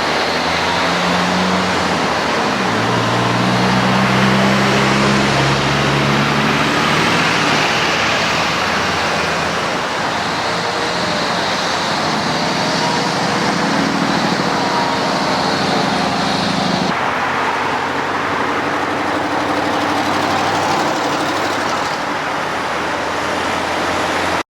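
Road traffic passing through a construction zone: vehicle engines humming and tyre noise, steady and fairly loud, with engine pitches rising and falling as vehicles move through. The sound changes abruptly about 17 seconds in.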